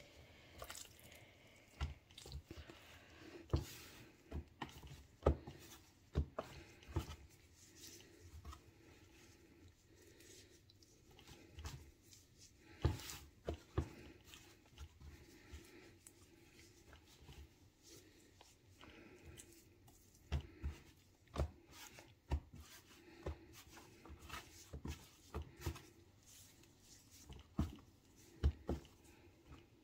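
Marinated raw chicken pieces being dredged one by one in seasoned flour. Handling noise with irregular soft knocks and taps, scattered unevenly throughout.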